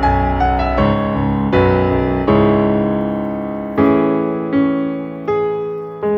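Background music: a gentle piano piece, notes and chords struck and left to fade.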